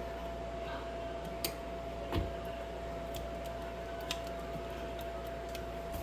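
A few scattered light clicks and taps from hand work on small parts, about four in six seconds. The loudest is a knock a little over two seconds in. A steady low hum runs underneath.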